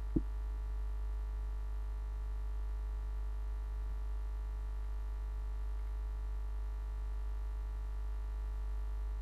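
Steady low electrical mains hum from a sound system, with faint steady tones above it and one brief thump just after the start.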